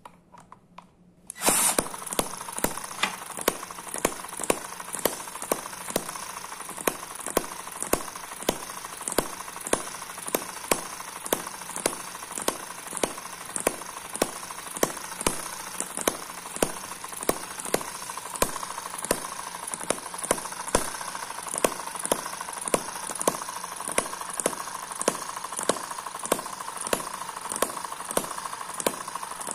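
Eachine EM2 vertical hit-and-miss model engine spun up with a cordless drill about a second and a half in, then running on its own: sharp firing pops about two a second over a steady whir from its gears and flying-ball governor.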